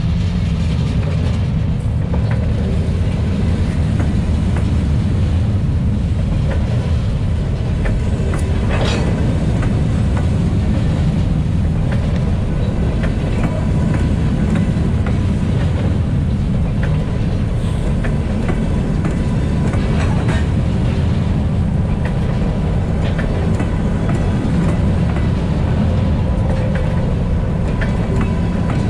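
Freight train of covered hopper cars rolling past close by: a steady heavy rumble of steel wheels on the rails with frequent clicks and knocks from the wheels and rail joints, and a brief high squeal about nine seconds in.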